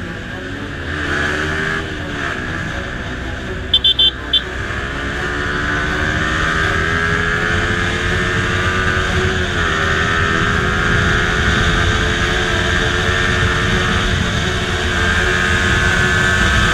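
Yamaha MT-15's single-cylinder engine running under way, its pitch climbing slowly as it accelerates and dropping back about ten seconds in, then getting louder toward the end. About four seconds in comes a quick run of four short high beeps.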